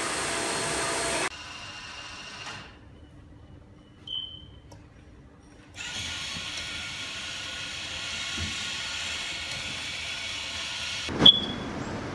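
Workshop mechanism noise, a whir with clicks, that cuts abruptly a few times. It drops to a quiet stretch with a brief high tone, returns as a steady mechanical hum, and one sharp click with a short ringing note comes near the end.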